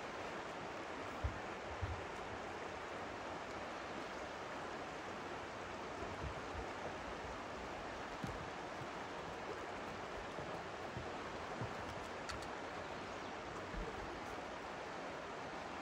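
Steady rush of a river flowing over shallow riffles, with a few soft low thumps about a second in and now and then after.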